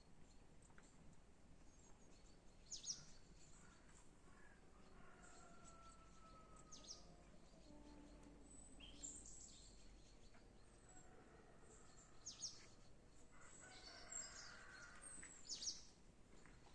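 Birds chirping: about six sharp, high calls that sweep steeply downward, spaced a few seconds apart, with fainter whistled notes between them.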